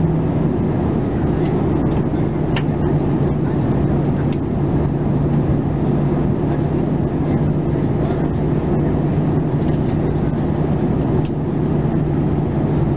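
Cabin noise of an Airbus A320-214 in flight: the steady drone of its CFM56-5B turbofan engines and the rush of air past the fuselage, with a steady low hum.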